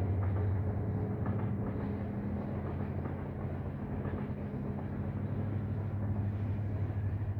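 Steady low rumble of a passing heavy vehicle, with light rattling clicks over it.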